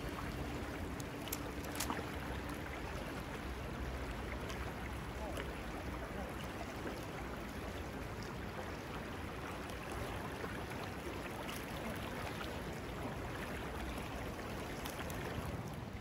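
Shallow river current rushing and rippling over rocks, a steady even rush of water.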